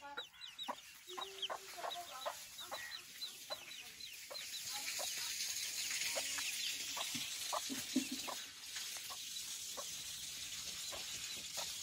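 A domestic hen clucking in short, low calls while her chick peeps in quick, high, falling chirps. About four seconds in, a steady hiss comes up underneath.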